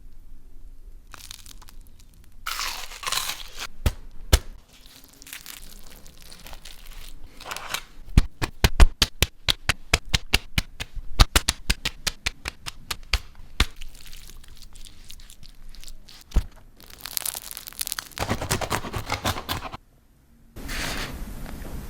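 A crusty sandwich crunching and tearing, with a rapid run of sharp crackles in the middle lasting about five seconds and rustling bursts before and after.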